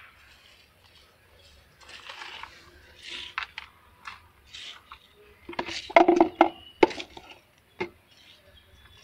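Loose potting-soil mix being scooped and turned with a hand trowel in a plastic tub: rustling of crumbly soil falling and sliding, and scrapes and knocks of the trowel. The loudest cluster of knocks and scrapes comes about six seconds in.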